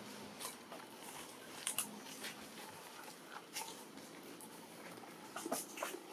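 Soft, irregular clicks and smacks over a faint background hiss, from a mother long-tailed macaque and the newborn nursing at her belly.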